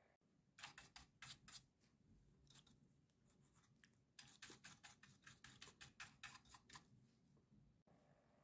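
Faint scratchy strokes of a small stiff-bristled brush scrubbing dust off a laptop cooling fan's blades. A handful of strokes come about half a second in, then a quicker run of about five a second through the middle.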